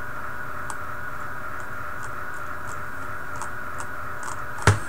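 Faint, irregular clicks of computer input, with one sharper, louder click near the end, over a steady microphone hiss.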